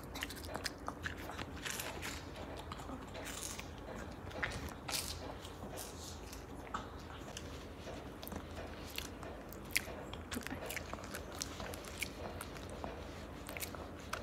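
A Maltese dog crunching and chewing a small dried fish treat: a long run of irregular crisp crunches and clicks.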